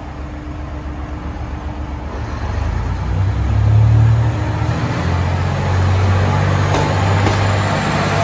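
ET122 diesel railcar's engine humming low as the railcar comes in alongside the platform. It grows louder as it nears, loudest about four seconds in, then runs steadily as the car draws close.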